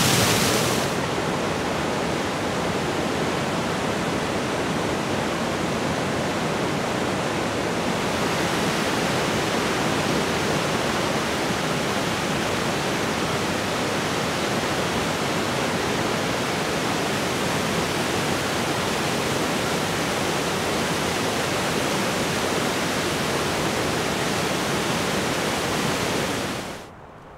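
Waterfall rushing: a steady, even roar of falling water that dips slightly about a second in and cuts off suddenly near the end.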